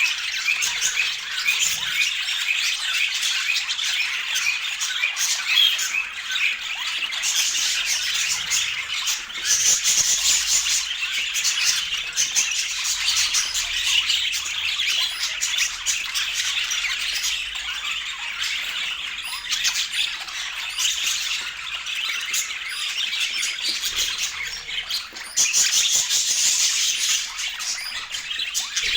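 A flock of budgerigars chattering and squawking without a break, many short warbled notes overlapping, swelling louder a few times.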